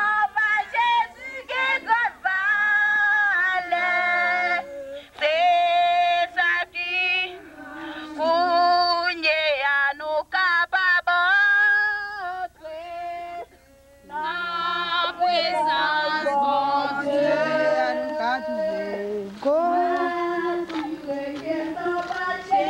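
A group of people singing a hymn together, in long held notes, with a brief pause a little past the middle.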